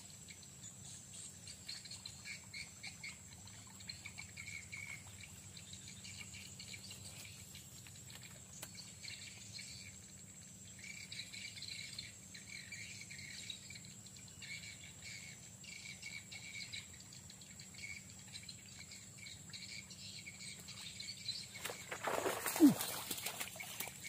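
Insects chirping in short repeated pulses over quiet swamp background. About 22 seconds in, a snakehead fish strikes at the surface with a sudden loud splash.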